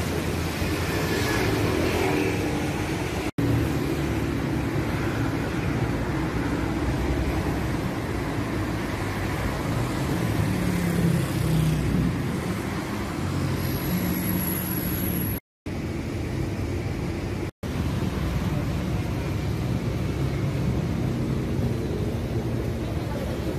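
Steady road traffic noise of passing cars and their engines. The sound drops out abruptly for an instant three times.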